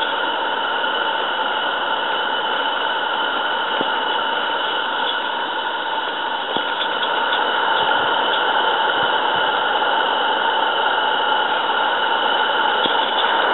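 Steady hiss of steam from a Roundhouse Fowler 16mm-scale live steam locomotive pushing a snowplough through snow, getting a little louder about halfway through, with a few faint clicks.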